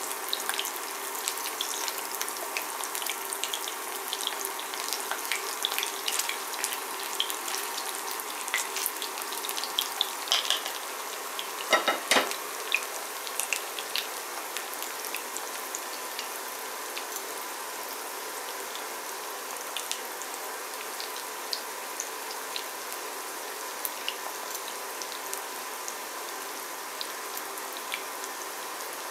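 Breaded chicken nuggets sizzling and crackling in shallow oil in a ceramic pan. At first a wooden spatula moves them and the crackling is busier. There is a single knock about twelve seconds in, then a steadier sizzle.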